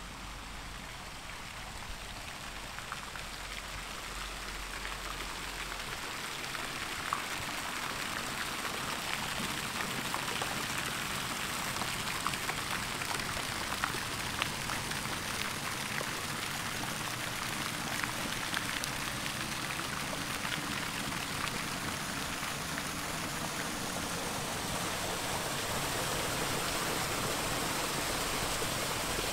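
Steady watery hiss with many small irregular ticks, growing slowly louder.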